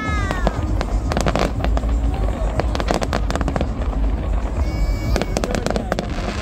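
Fireworks display: a rapid run of bangs and crackling from bursting aerial shells and crackling stars over a continuous low rumble.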